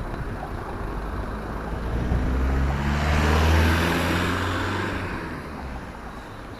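A motor vehicle driving past on the road. Its engine note and tyre noise swell from about two seconds in, are loudest near the middle, then fade away.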